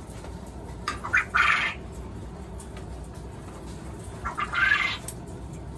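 Coturnix quail calling twice from the cages, about three seconds apart. Each call is a harsh phrase of a couple of quick short notes and then a longer one.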